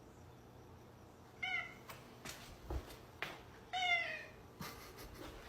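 Domestic cat meowing twice, about one and a half seconds in and again near four seconds, each meow short and falling in pitch, with a few light clicks in between.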